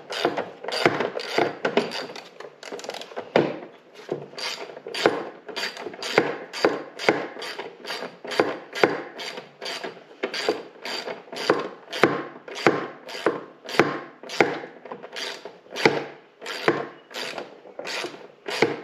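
Hand ratchet wrench clicking in steady back-and-forth strokes, about two a second, tightening a bolt.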